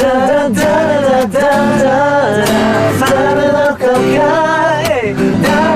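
A song with a sung vocal melody over a band, drums hitting on a steady beat about twice a second.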